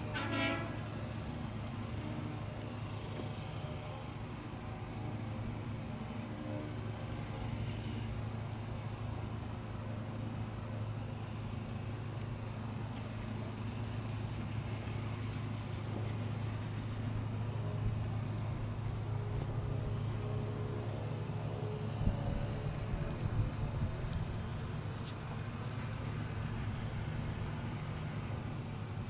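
Insects trilling in a steady, unbroken high-pitched buzz, over a low steady hum, with a few knocks about three-quarters of the way through.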